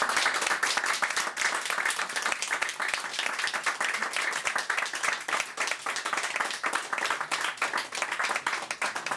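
Audience applauding: dense clapping, loudest at first, thinning to scattered claps near the end.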